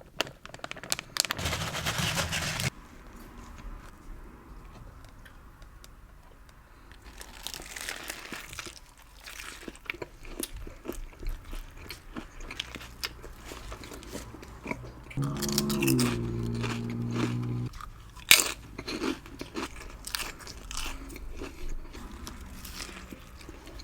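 Close-miked eating of a lettuce-wrapped burger: crisp lettuce crunching on each bite, with wet chewing clicks throughout and a louder burst of crunching in the first seconds. About two-thirds through, a steady low hum lasts a couple of seconds.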